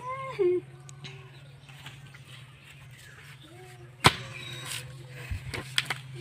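Coconuts knocking against each other as they are handled on a pile: one sharp knock about four seconds in and a few lighter knocks near the end, over a steady low hum, with short calls near the start.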